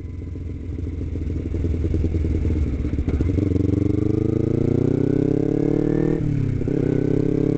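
Kawasaki Ninja 250's parallel-twin engine accelerating: it runs low for the first few seconds, then climbs steadily in pitch, drops sharply about six seconds in at a gear change and starts climbing again.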